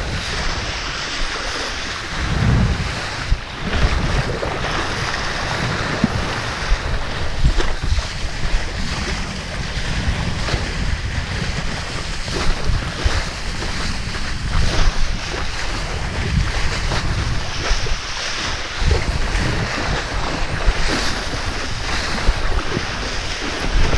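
Wind buffeting the microphone over the rush and slap of water under a kiteboard riding across choppy water, in a steady loud noise with frequent irregular thumps.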